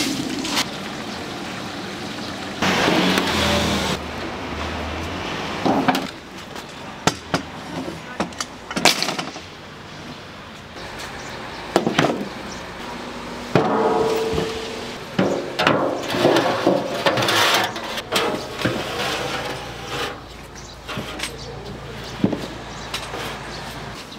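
Kitchen work clatter: irregular knocks of cooking utensils against metal trays and pans, over a steady background noise.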